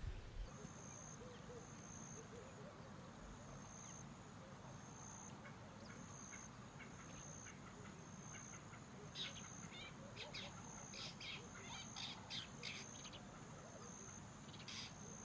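Faint tropical forest ambience: a high insect trill that runs in regular on-and-off stretches, joined about nine seconds in by a quick series of short bird calls, with one more call near the end.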